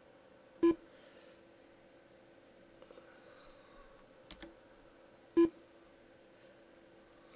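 Two short electronic beeps, about five seconds apart, from the Zu3D stop-motion software as each new frame is captured. A few faint clicks fall between them over a low steady hum.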